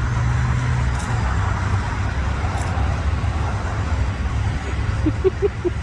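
Steady outdoor background noise: a dense low rumble with a hiss over it, and a few short pitched sounds about five seconds in.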